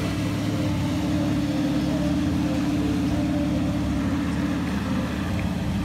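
Ski towboat's engine running at speed with a steady low drone as it pulls a water-skier past.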